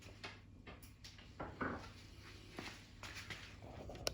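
Faint handling noises: scattered small clicks and rubs of plastic parts being handled, with one slightly louder knock about one and a half seconds in.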